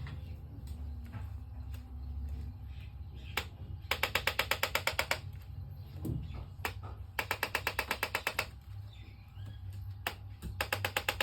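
A small mechanical device clicking rapidly like a ratchet, about ten clicks a second, in three bursts of roughly a second each, the last starting near the end. A few single knocks fall between the bursts.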